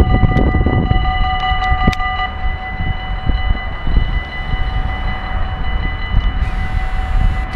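An NS Koploper electric train approaching along the line, heard as a low rumble with wind buffeting the microphone, over several steady high-pitched tones. One of the tones cuts off about two seconds in.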